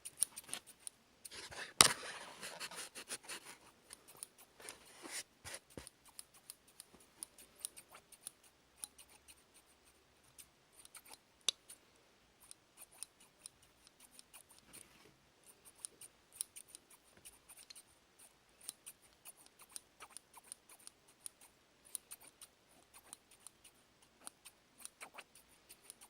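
Haircutting scissors snipping over and over at an uneven pace, each snip a short crisp click, with a denser, louder run of snips about two seconds in.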